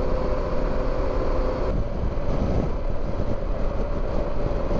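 Wind rush and road noise from a Harley-Davidson Pan America cruising at highway speed, over a steady engine hum. The sound shifts abruptly about two seconds in.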